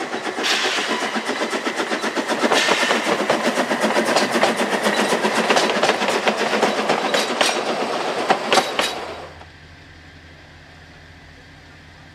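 Train passing at speed: a loud, fast, even clatter of wheels over the rail, with a few sharp cracks near the end. It fades out quickly about nine seconds in, leaving only a low steady hum.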